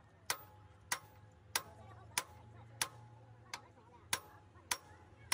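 Sledgehammer striking a heavy truck's rear brake drum in a steady rhythm, about nine blows at well under two a second. Each blow is a sharp metallic clank with a short ring, as the drum is knocked loose from the hub.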